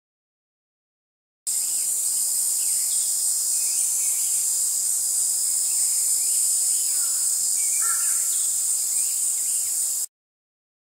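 Cicadas singing in a steady, high-pitched chorus, with a few faint bird chirps under it. It cuts in after about a second and a half of silence and cuts off about a second before the end.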